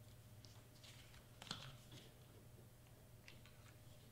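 Near silence with faint handling of cardstock and foam tape: a few soft rustles and clicks, the clearest about a second and a half in, over a faint low hum.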